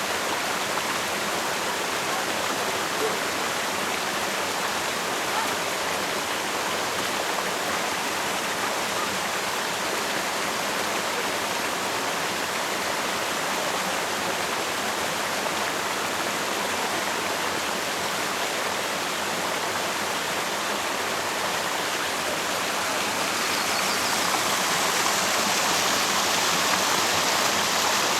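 Steady rushing of running water from a mountain stream, a little louder in the last few seconds.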